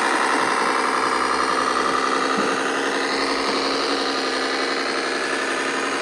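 Radio-controlled scale model truck running with a steady, even engine drone.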